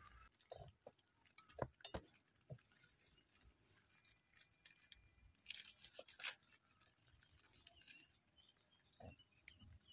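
Near silence with faint, scattered rustles and light taps as lettuce leaves are picked by hand in a rain-wet garden bed.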